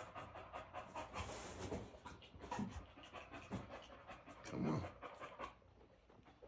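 A boxer bitch panting rapidly and heavily while in labor, the breathing easing off about five and a half seconds in.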